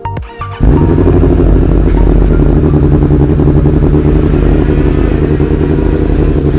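Racing motorcycle engine running loudly at steady revs, starting abruptly about half a second in.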